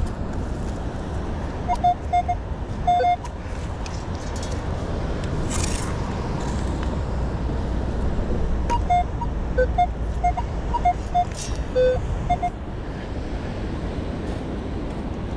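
Minelab Manticore metal detector giving short beeping target tones, mostly one mid pitch with a few higher and lower ones, in clusters as the coil passes over a target it reads as a quarter. A steady low rush underlies it, with a brief hiss about six seconds in.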